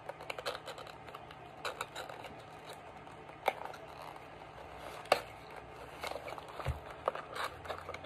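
Small paperboard box being opened by hand: light scraping and rustling of the card and flap, with scattered small clicks and two sharper ticks in the middle.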